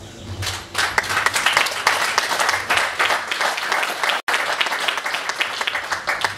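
Audience applauding, the clapping starting about half a second in and going on steadily.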